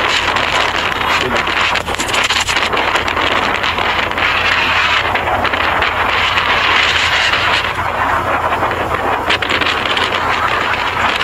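Strong, gusty wind from a nearby tornado rushing across the microphone: a loud, steady, noisy rush with crackling gusts and a low rumble underneath.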